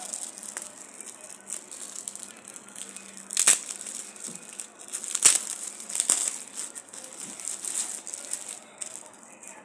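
Plastic clothing packaging being opened and handled, rustling and crinkling, with a few sharper crackles about three and a half and five seconds in.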